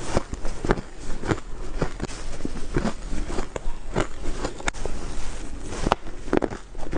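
A person biting into ice: sharp, crisp crunches and cracks, about one or two a second.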